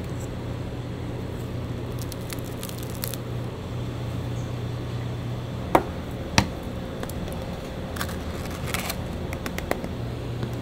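Crusty sandwich bread crackling and rustling as gloved hands handle it, with two sharp clicks close together about six seconds in. A steady low hum runs underneath.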